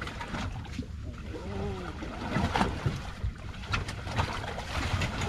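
Wind rumbling on the microphone and water against the hull of a small fishing boat drifting on open ocean, with a few light knocks near the middle.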